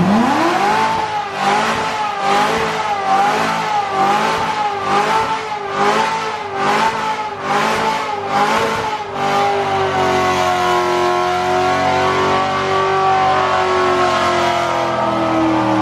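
Car engine revved up hard and held at high revs, its pitch bouncing up and down about one and a half times a second for the first nine seconds or so. It then holds a steady high note and falls away at the end.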